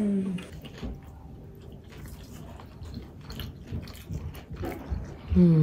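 A person chewing food with the mouth closed: faint, irregular small clicks and squelches. A brief vocal sound falls in near the end.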